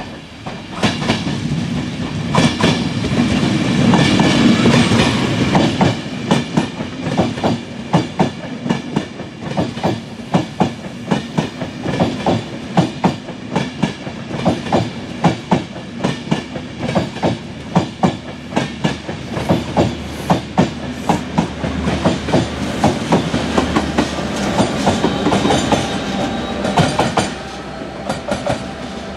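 Enterprise passenger train rolling through at speed over jointed track: its wheels clack in a rapid, steady rhythm as each bogie crosses the rail joints, over a low rumble that is loudest as the front of the train passes.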